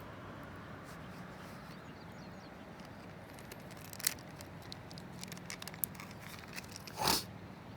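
Wood campfire crackling with scattered small pops over a steady hiss, and one louder short rustling noise about seven seconds in.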